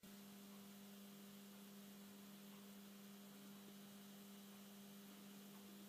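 Near silence: a faint, steady low hum with light hiss underneath.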